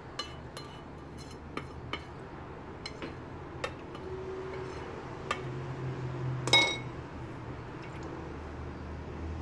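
Spatula stirring a watery masala mixture in a stainless steel bowl, with scattered light clinks and taps against the metal. About two-thirds of the way through there is one louder, ringing clink.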